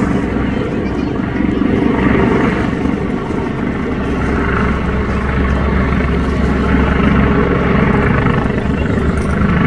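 Helicopter running steadily, its rotor giving a fast even beat under a constant engine noise.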